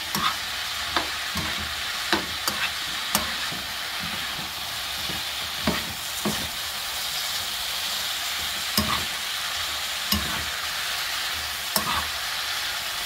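Julienned potatoes and carrots sizzling steadily in oil in a frying pan while being stir-fried with a metal spoon, with irregular clicks and scrapes of the spoon against the pan.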